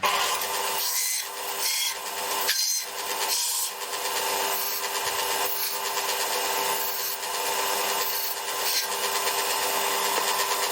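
Metal-cutting tool working aluminium bar stock, a steady rasping with a regular stroke rhythm of roughly one stroke a second over a steady hum.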